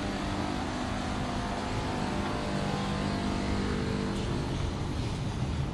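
A motor vehicle's engine running close by with a steady hum. The hum fades out about four seconds in, leaving a steady broad hiss.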